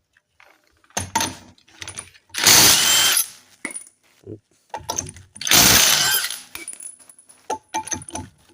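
Metal tool work at a car's rear wheel: two loud rasping bursts about a second each, with light metallic clinks and knocks between them.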